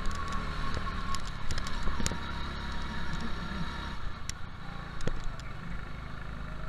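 Go-kart engine running steadily while the kart is driven at speed, heard from on board. Its low note drops about four seconds in. A few sharp knocks from the kart are heard about two, four and five seconds in.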